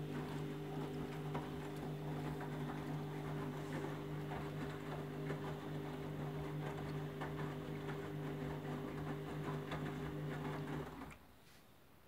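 Candy Grand'O Vita front-loading washing machine tumbling a wet load in rinse water: a steady motor hum with water sloshing and splashing against the door glass. The hum and splashing stop abruptly near the end as the drum pauses.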